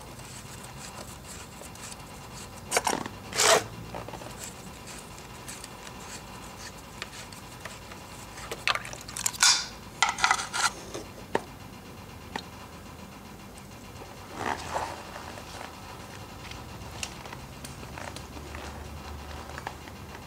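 A few short scrapes and clicks from handling the oil drain bolt under a scooter engine as it is unscrewed by hand, over a steady low background hum. Old engine oil then starts to drain from the crankcase into a metal drain pan.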